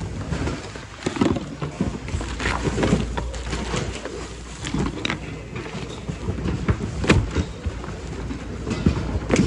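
Hands rummaging through a thrift-store bin of mixed goods: irregular knocks and clatter of hard items shifting, with plastic bags and fabric rustling, over a steady low hum. The sharpest knocks come about a second in, near the seven-second mark and at the very end.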